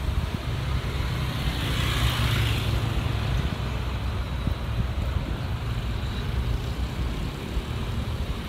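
Steady low outdoor rumble, with a brief rushing hiss about two seconds in.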